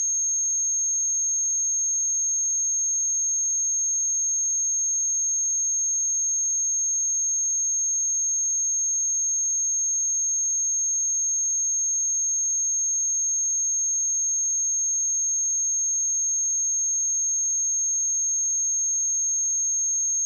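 Steady pure sine-wave test tone at 6457 Hz, a single high-pitched whistle held at constant pitch and level.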